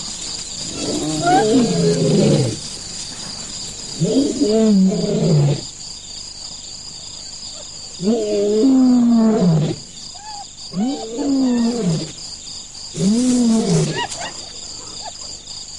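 Lions growling: five drawn-out calls, each rising briefly then falling in pitch, a few seconds apart. Crickets chirp steadily underneath.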